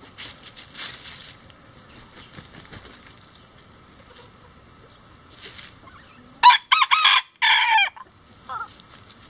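A bantam rooster crows once, loud and high-pitched, about six and a half seconds in; the crow lasts about a second and a half and comes in a few broken phrases.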